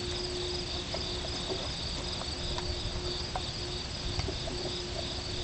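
Insects chirring steadily in two high-pitched bands, over a low rumble and a few faint clicks.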